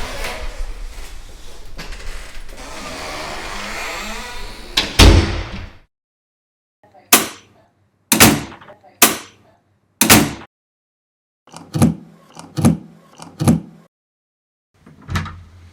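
Door sound effects: a door being opened with a continuous rustling, scraping noise that ends in a loud thud about five seconds in. After a short pause come a series of sharp clicks and knocks, four spaced about a second apart, then a quicker cluster of four, then one more near the end.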